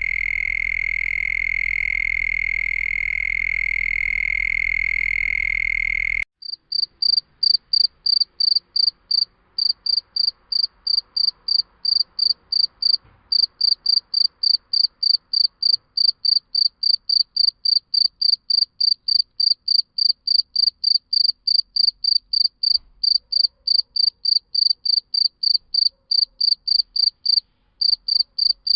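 An unbroken, steady insect-like trill that cuts off abruptly about six seconds in. It gives way to a cricket chirping in an even, high-pitched rhythm of about four chirps a second, with a few short pauses.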